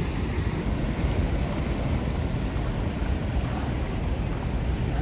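Steady rush of river water pouring over a check dam's crest and down its spillway, with wind on the microphone.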